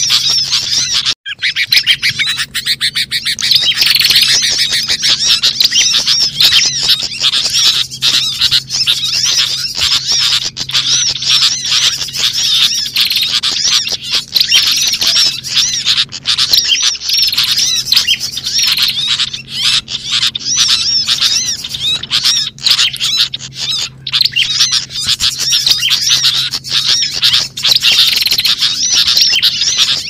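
Dense, noisy chorus of many small wild birds chirping and calling over each other in fast, high, repeated notes: a lure recording for attracting small birds. A steady low hum runs underneath, and the sound drops out briefly about a second in.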